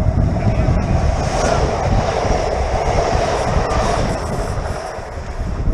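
Renfe Class 447 electric train passing close by, its running and wheel noise swelling for about four seconds and then fading, with strong wind buffeting the microphone.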